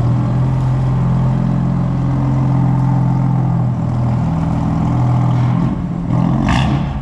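BMW M4 coupe's engine running at steady revs, with a short hiss about six and a half seconds in.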